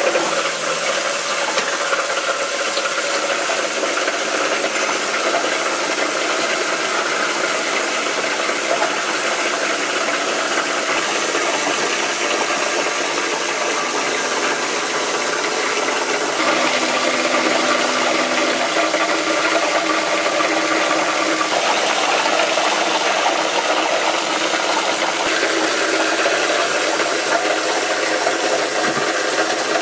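Belt-driven plastic scrap granulator running, its flywheel spinning and its blades chopping plastic scrap into flakes: a steady, dense mechanical noise that holds at an even level throughout.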